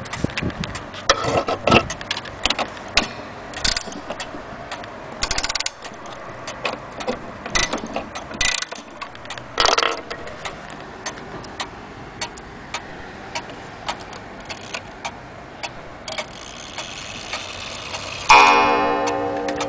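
Antique Vienna regulator wall clock ticking, with a few louder knocks in the first ten seconds. Near the end it strikes once on its coiled wire gong, which rings on in several tones and slowly fades.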